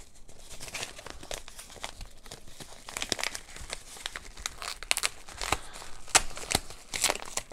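Plastic packaging crinkling and rustling as a small parcel is opened by hand, with irregular sharp crackles that grow busier about three seconds in.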